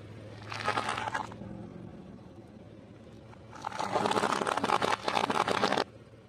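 Car tyre crushing crunchy puffed snack food on concrete, a crackling crunch: a short burst about half a second in, then a longer, louder one from about three and a half seconds to nearly six.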